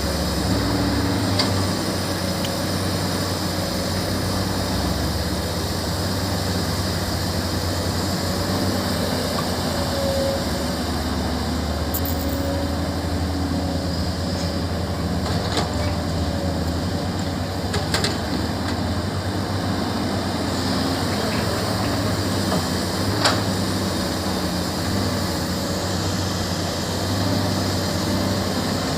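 Heavy diesel construction machinery running steadily, a low engine drone, with a few sharp knocks scattered through it.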